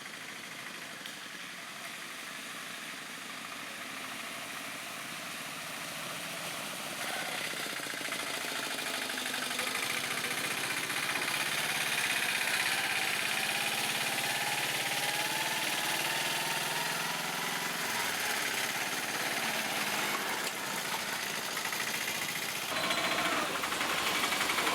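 Autorickshaw engine running, growing louder over the first dozen seconds and then holding steady.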